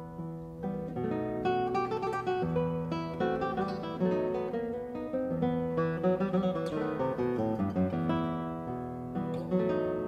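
Background music: acoustic guitar playing quick plucked and strummed notes.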